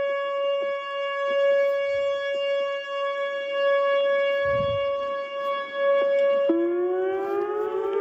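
Outdoor tornado warning siren sounding a steady tone. About six and a half seconds in it switches abruptly to a lower tone that slowly rises in pitch.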